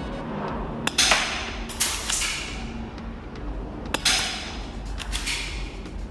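KWC Beretta M92 spring-powered airsoft pistol being cocked and fired, 6 mm BBs: three sharp clacks, each followed by a short rush of noise that fades out.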